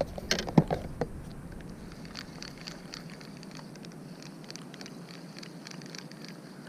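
A few sharp knocks in the first second, then faint, irregular light clicking and ticking, like small handling noises on a kayak.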